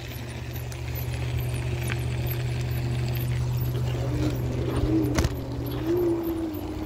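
iSinwheel S9 Max electric scooter under way: a steady low hum with a thin motor whine that wavers and climbs after about four seconds, and one sharp knock about five seconds in. The rider says its wheel hub motor is blown.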